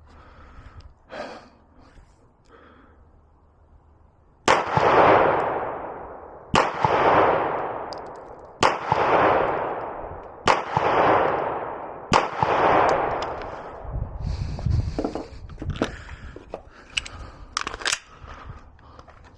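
Five pistol shots fired slowly, about two seconds apart, each ringing out in a long fading echo. Lighter clicks and clatter of handling follow near the end.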